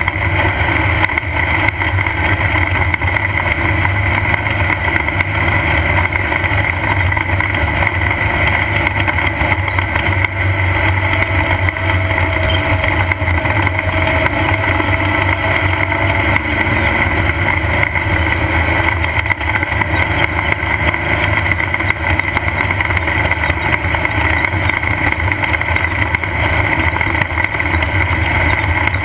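Off-road race car's engine running at a steady, unchanging pitch, heard from on board, with light rattling over it.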